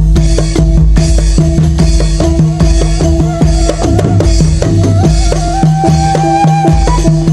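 Loud Topeng Ireng accompaniment: drums keep a fast, even beat over repeating pitched percussion tones. A higher melody note is held from about the middle to near the end.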